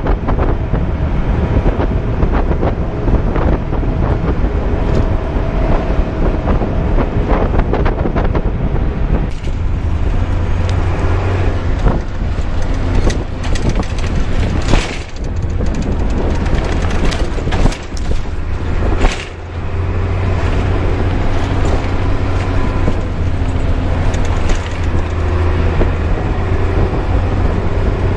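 A bus running on the road, heard from inside at the window: engine drone and road noise, with a steady low hum that grows stronger about a third of the way in. There are a few brief knocks near the middle.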